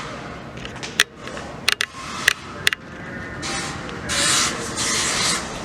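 Gritty scraping and rubbing, with several sharp clicks between about one and three seconds in and a longer stretch of scraping near the end.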